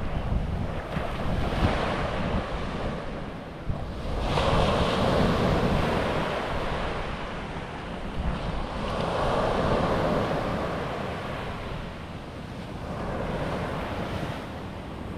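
Ocean surf breaking on a sand beach, swelling and fading as a wave comes in about every four to five seconds, with wind buffeting the microphone.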